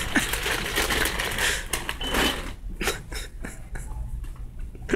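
Clattering and rattling as an electric mobility shopping scooter drives down a store aisle, with scattered clicks and knocks, and a brief high beep about two seconds in.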